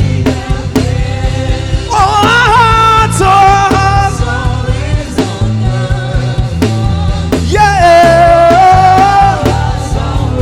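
Live gospel worship music: a singer holding and bending long notes over a band with drums and bass.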